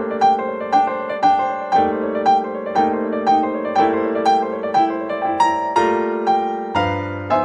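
Piano music: a repeated melody of notes struck about twice a second over sustained lower chords.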